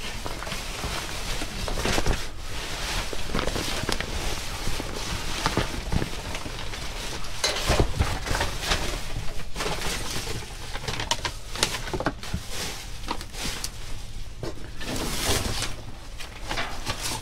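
Rustling and crinkling of plastic bags and cardboard, with irregular small knocks, as hands rummage through a box of discarded items.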